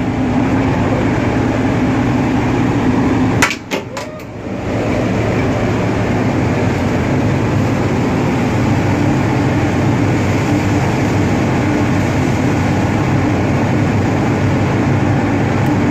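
Ship's engine machinery droning steadily with a low, even hum. About three and a half seconds in it briefly drops away with a few sharp clicks, then resumes.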